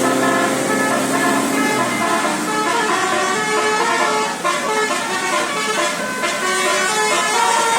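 A bus's telolet basuri multi-tone musical horn playing a tune: a held chord for the first couple of seconds, then a run of quick changing notes.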